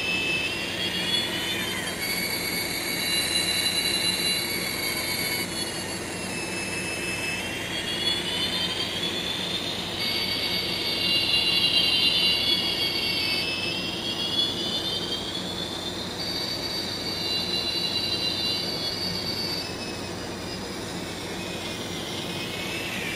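Small-speaker sound of an MRC decoder in an N-scale Kato F7A: a steady diesel engine hum, with a chord of high tones, like the locomotive's horn, held three times for about three and a half seconds each. A thin whine rises and falls between the blasts.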